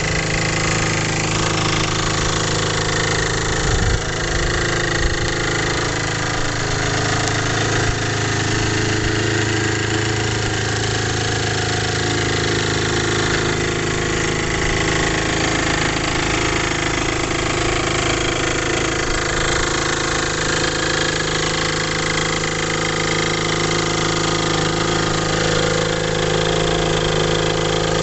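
Aprilia Scarabeo 50 Ditech scooter's air-cooled 50cc two-stroke direct-injection engine idling steadily.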